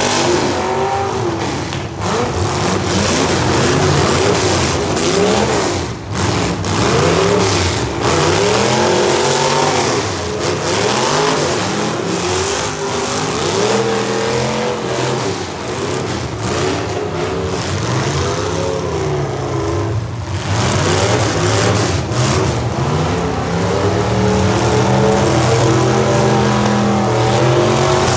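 Several demolition derby cars' engines revving hard, their pitches rising and falling over one another, with a steadier low engine note in the last few seconds.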